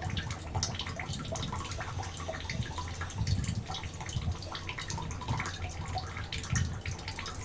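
A spoon stirring a wet rice-flour batter in a bowl, with irregular small clicks and wet mixing sounds.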